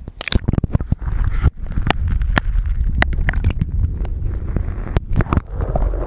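Wind buffeting an action camera's microphone on a kayak: a heavy low rumble, with many irregular sharp knocks and clicks.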